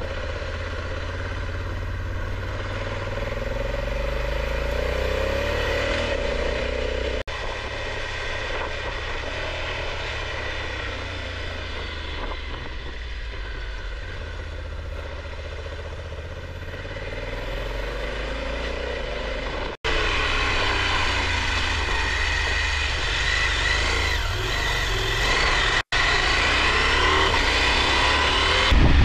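Motorcycle engine running at low speed through tight corners, its pitch falling and rising as the rider slows and picks up again, over a steady low rumble. The sound cuts out briefly three times.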